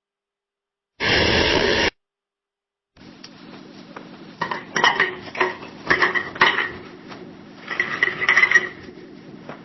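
Coffee-making sounds. About a second in there is a short, loud burst of noise lasting just under a second. After a pause come repeated clinks and scrapes of cups and utensils, some ringing briefly, over a faint steady hum.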